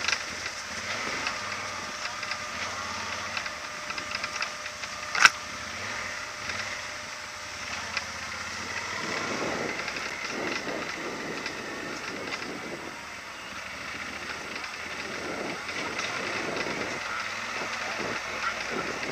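Yamaha Super Ténéré XT1200's parallel-twin engine running at low speed as the bike rides over a rough, sandy dirt trail, with rattles and knocks from the bike over the ruts and one sharp knock about five seconds in.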